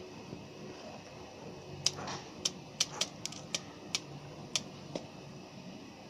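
A finch pecking at millet seed in a plastic feeder tray: about nine sharp, irregular clicks of its beak, starting about two seconds in, over a faint steady hiss.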